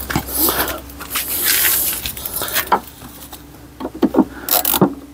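Metal tools clinking and knocking against metal as they are handled, after a rush of scraping noise in the first two seconds.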